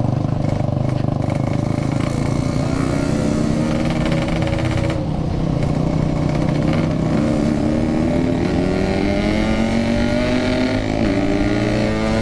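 Yamaha RX King 135cc two-stroke single-cylinder motorcycle engine running under way. Its pitch dips about five seconds in, then rises steadily through the last few seconds as it accelerates.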